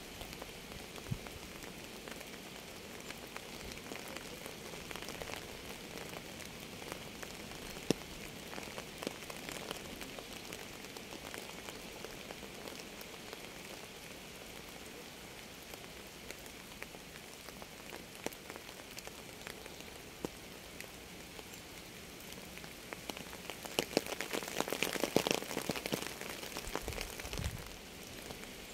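Rain falling steadily, with individual drops ticking sharply on a surface; the drops grow heavier and louder for a few seconds about 24 seconds in.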